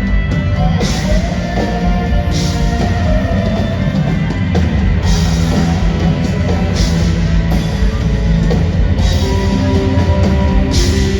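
Live rock band playing loud, with drum kit, cymbal crashes and electric guitar, heard through a fan's phone recording in the hall.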